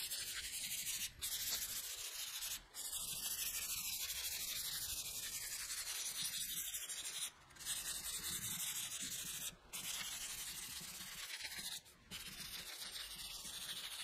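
220-grit sandpaper on a hand sanding block scrubbing back and forth over polyurethane primer on a Volkswagen Amarok tailgate. It makes a steady dry hiss, broken by a few brief pauses where the strokes stop.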